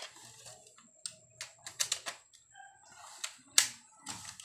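Plastic toy gun and magazine being handled: a string of sharp, irregular clicks and clacks, the loudest about three and a half seconds in.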